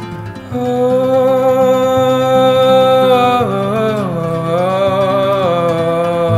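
A man singing one long held note over an acoustic guitar; about halfway through the note dips and wavers in pitch, then settles and is held again until near the end.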